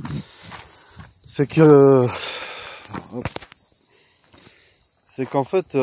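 Steady high-pitched chirring of insects. A man's voice is heard briefly, in a drawn-out sound about a second and a half in and again near the end.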